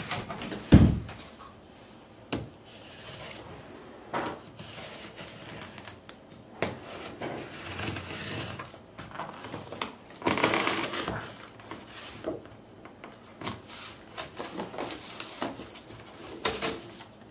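A cardboard shipping box being handled and opened: scattered knocks and clicks, with stretches of scraping and rustling of cardboard and packing material.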